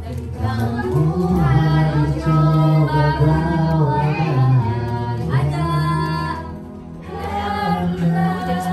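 Karaoke singing: voices singing a melody into microphones over a pop song's backing track played through the TV speakers, several voices at once, with a short dip about seven seconds in.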